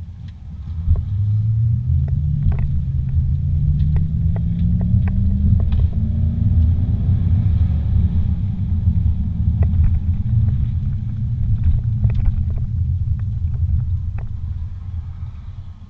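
Car engine and road rumble heard from inside the cabin. The engine note climbs steadily for several seconds as the car accelerates, then holds, with scattered light clicks and rattles, and it eases off near the end.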